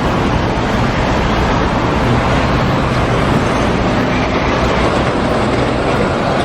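Loud, steady vehicle noise with a low hum under it, like an engine running on the road, held at an even level as an edited-in sound effect.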